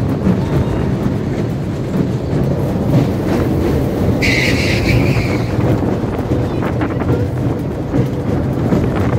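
Small amusement-park roller coaster train running along its track, with wheels rattling and rumbling steadily. There is a brief high squeal about four seconds in.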